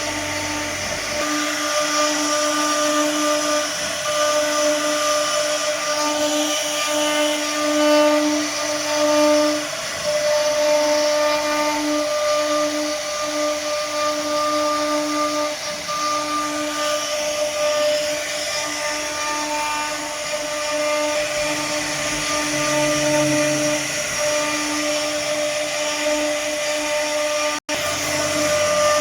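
CNC router spindle running and cutting: a steady whine over a hiss of cutting, the whine swelling and fading as the load changes. It cuts out for an instant near the end.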